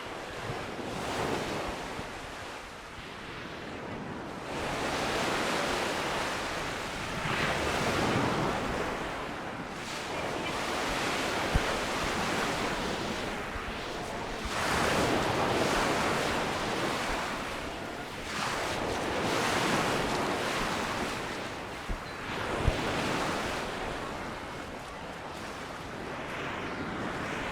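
Sea waves breaking and washing up the shore, swelling and falling every few seconds, with some wind on the microphone. There are two brief knocks, about a third of the way in and again past the middle.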